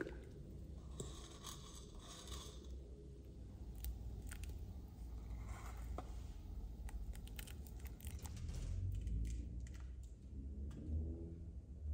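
Whole spices (cinnamon sticks and cloves) dropped by hand into a large aluminium pot of water, and wooden spice bowls handled, giving scattered small clicks and taps over a low steady rumble.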